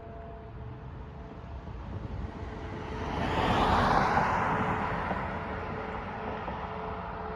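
A vehicle passing by: its road noise swells to a peak about four seconds in, then fades while the pitch drops.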